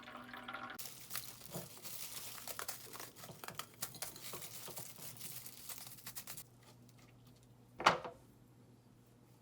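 Plastic packaging crinkling and rustling as it is handled, for about six seconds, then a single sharp knock about eight seconds in.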